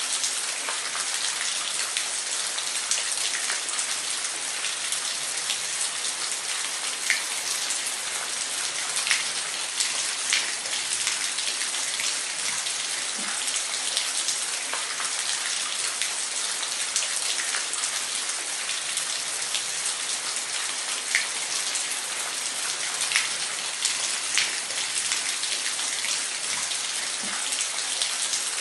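Waterfall: a steady rush of falling water, with small splashes ticking through it now and then.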